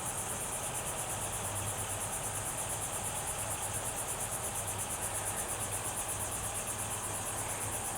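Insects, such as crickets, chirping in a steady, rapidly pulsing high-pitched chorus, over a low steady hum.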